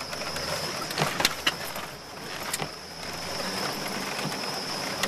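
Cabin sound of a Jeep driving a muddy off-road trail: the engine runs steadily under a wash of noise. A few sharp knocks and rattles come about a second in and again between two and three seconds in.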